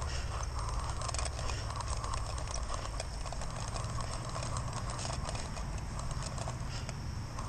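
Footsteps walking through grass, a steady patter of soft steps over a constant low rumble.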